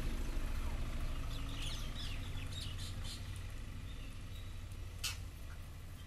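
Green parakeets giving a few short, high calls about two seconds in, over a steady low hum, with a single sharp click near the end.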